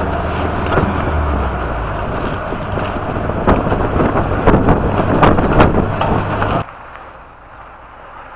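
A vehicle driving, its engine running with a steady low hum under loud road noise and knocking rattles. About two-thirds of the way in it cuts off abruptly to a much quieter outdoor background.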